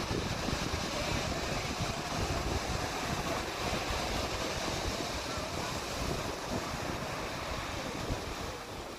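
Ocean surf breaking and washing onto a sandy beach, a steady rush, with wind buffeting the microphone.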